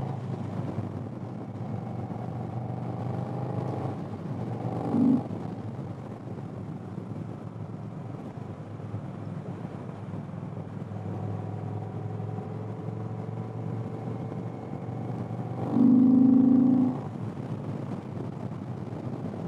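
V-twin cruiser motorcycle engine running on the road, its pitch rising and easing with the throttle. A short louder sound comes about five seconds in, and a louder, roughly one-second sound about sixteen seconds in.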